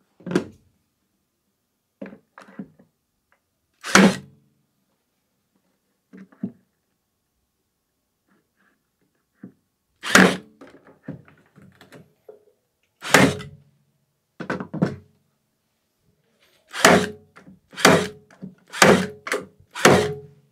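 Milwaukee M12 battery-powered cable stapler firing staples over thick 10-gauge PV cable into a wooden 2x4, each shot a sharp thunk. There are three spaced shots, then four in quick succession about a second apart near the end, with fainter knocks between them.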